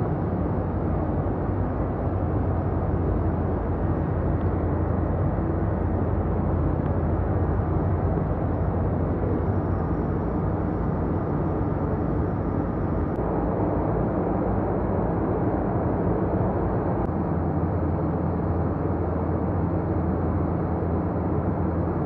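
Steady drone of ship's engine-room machinery: a low hum under an even rushing noise, unchanging throughout.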